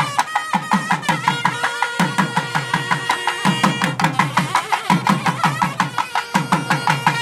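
Procession music: a barrel drum beaten in a fast, steady rhythm under a wind instrument holding a wavering melody.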